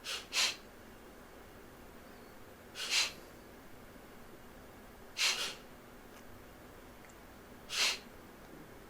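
Sharp, forceful exhalations through the nose in Kapalabhati breathing, each pushed out by a quick contraction of the belly. There are four short puffs, about two and a half seconds apart, and the first comes as a double puff; the inhalations between them are barely heard.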